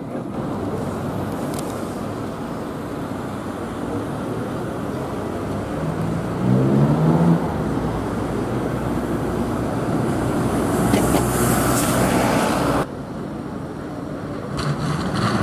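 Street traffic noise with a double-decker bus's diesel engine pulling through, its note rising briefly as it accelerates. Near the end it cuts abruptly to quieter street noise.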